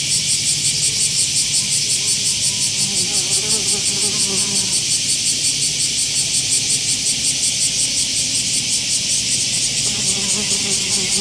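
Loud, steady insect song, a fast even pulsing that never stops. A faint low buzz of a flying sand wasp's wings comes in now and then, a few seconds in and again near the end.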